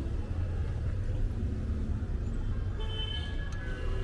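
Steady low rumble of city traffic, with a few faint high tones joining in past the middle and a faint click near the end.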